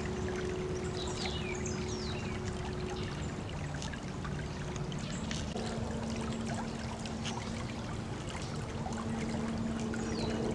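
Creek water trickling and running steadily, under a steady low hum. A few short, high, falling whistles sound about a second in and again near the end.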